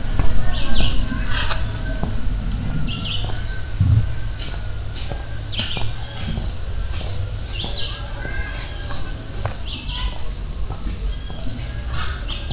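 Birds chirping: many short, high, repeated notes and hooked whistles, over a low steady rumble.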